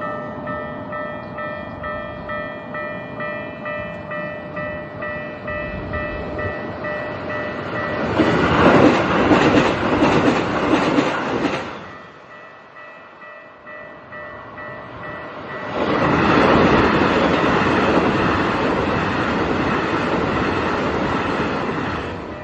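Japanese level-crossing warning bell ringing in steady, evenly repeated dings. A JR train runs loudly over the crossing about 8 seconds in for some four seconds, and a second train passes from about 16 seconds in until near the end, with the bell still ringing.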